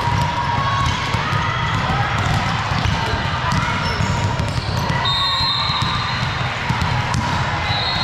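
Volleyballs being hit and bouncing on a gym's sport-court floor during a team warm-up, with many players' voices chattering in the hall.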